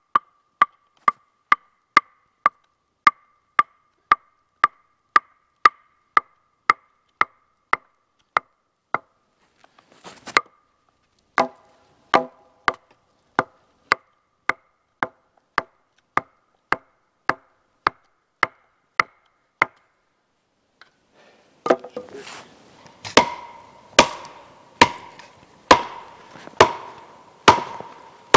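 Hatchet blows on wood, struck in steady runs of about two a second, each with a short ring. A pause comes about halfway through, and near the end the blows come louder and woodier.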